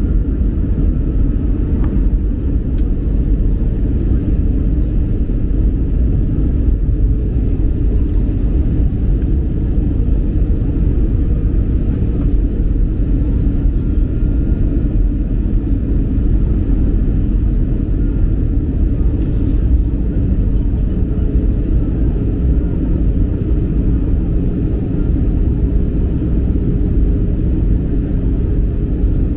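Jet airliner cabin noise heard from a window seat over the wing during the descent on approach: the engines and rushing airflow make a steady, deep, even rumble.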